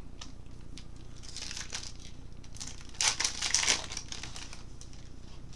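A baseball card pack's wrapper crinkling as it is torn open: a short spell of crinkling about a second and a half in, then a louder one about three seconds in.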